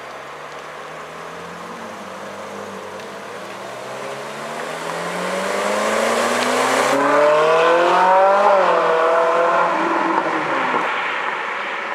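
Ferrari 458 Italia's V8 accelerating away, its note climbing steadily in pitch and loudness for several seconds. The pitch then drops sharply at an upshift and pulls briefly again before fading into the distance.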